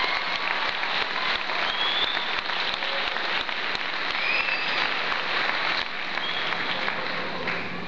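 Audience applauding: dense, steady clapping from a large crowd, with a few short high-pitched calls over it.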